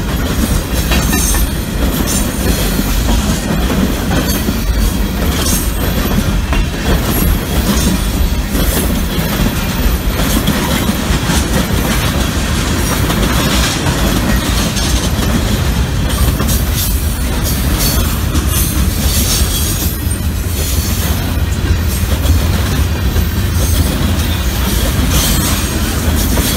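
Freight train of boxcars, tank cars and covered hopper cars rolling past close by: a loud, steady rumble of steel wheels on the rails with frequent clacks and knocks.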